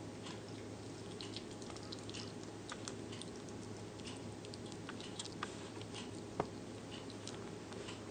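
A hamster chewing food as it eats: faint, irregular little clicks over a steady low hum, with one sharper click about six seconds in.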